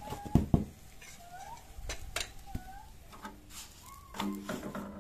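Knocks and clinks of cooking utensils being handled at a gas stove with an iron tawa, a few sharp strikes, with faint high wavering cries rising and falling several times behind them.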